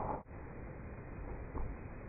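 Steady outdoor background noise, with a brief dropout just after the start and one soft thud about a second and a half in.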